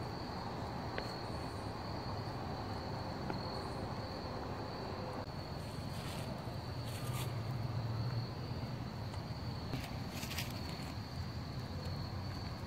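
A chorus of insects calling, a steady high trill that never lets up, with a few brief clicks about seven and ten seconds in.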